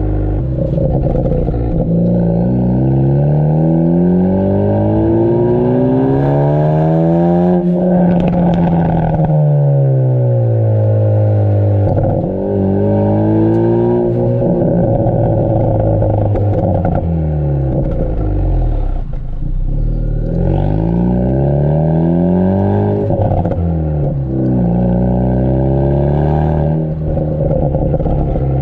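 Ford Focus ST's turbocharged four-cylinder heard through its Borla cat-back exhaust, revving up and down repeatedly: one long climb about seven seconds in, then several shorter rises and falls. A few short pops and crackles come from the pops-and-crackles tune as the revs drop.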